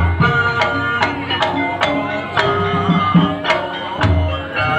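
Live Javanese gamelan playing, with ringing struck metal-keyed notes over hand-drum beats and a few deep drum thumps.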